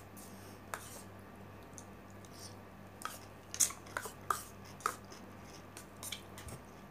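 Scattered short crinkles and clicks from a disposable plastic glove and the lid being worked off a small takeaway cup of rice, about half a dozen in all, over a faint steady hum.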